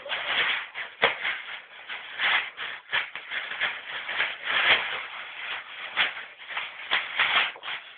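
Plastic shopping bag crinkling and rustling in irregular bursts as a dog bites, paws and shakes it.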